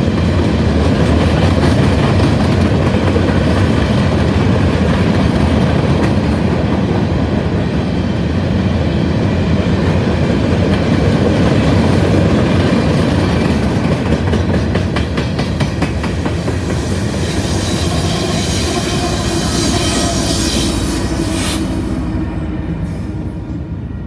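Empty freight cars of a rock train rolling past, a steady rumble with rapid wheel clicks over the rail joints and some high wheel squeal from about 17 to 21 seconds in. The sound fades over the last couple of seconds as the train moves off.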